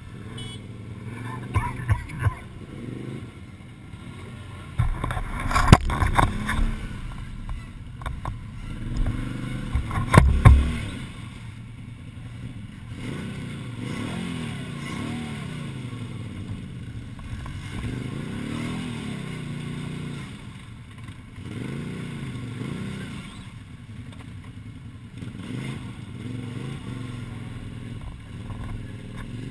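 Can-Am Outlander ATV engine revving again and again as the quad churns its wheels through a deep mud hole, its pitch rising and falling every couple of seconds. A few loud thumps and clatters come about five to ten seconds in.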